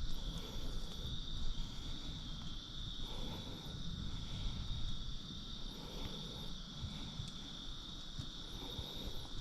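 Insects trilling steadily on one high pitch, with a faint low rumble underneath.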